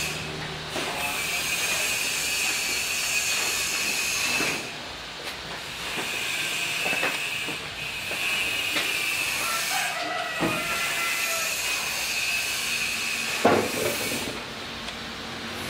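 Steady hissing workshop noise with a high whine, dropping away briefly three times, and a few sharp knocks, the loudest about thirteen seconds in.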